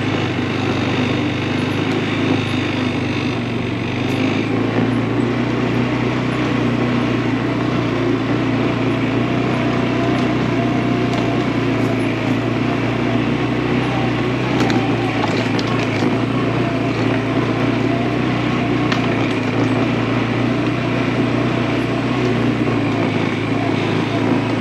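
ATV engine running steadily under way along a forest trail, with a few scattered clicks and snaps partway through.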